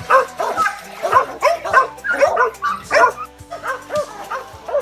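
Hog-hunting dogs barking rapidly and repeatedly, several barks a second, with background music underneath.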